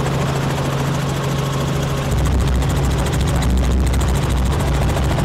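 Helicopter engine and rotor noise in flight: a steady drone with a fast, even beat from the blades. About two seconds in it turns deeper and louder.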